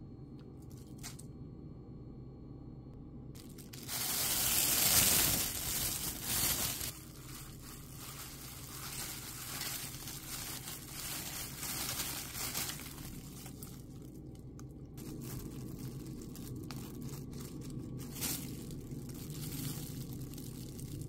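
Plastic bag crinkling and rustling as chicken marinade is kneaded inside it by hand. It is loudest for about three seconds near the start, then goes on in softer, uneven bursts.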